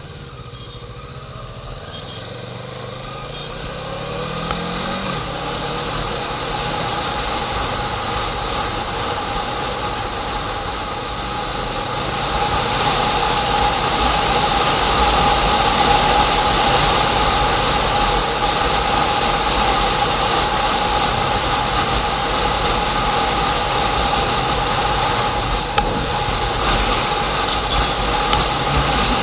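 An engine picking up speed during the first few seconds, then running steadily with a constant whine, growing louder about twelve seconds in.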